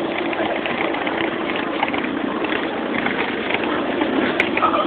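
Vehicle jolting along a rough track, heard from inside a dog box riding on it: steady engine and road noise with constant small rattles and knocks.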